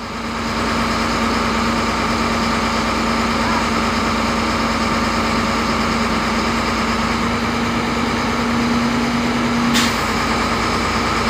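Heavy diesel engine running steadily, with a steady droning tone, as the truck-mounted crane hoists a mini dump truck. Near the end the drone cuts out with a short click.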